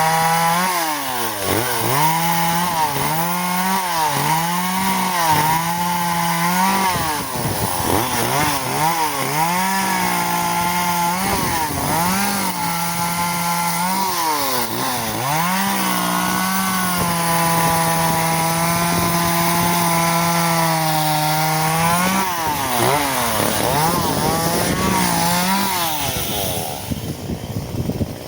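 Echo CS-370 two-stroke chainsaw running at high revs and cutting wood. Its pitch dips and recovers again and again as the chain bogs in the cut. The engine note falls away near the end.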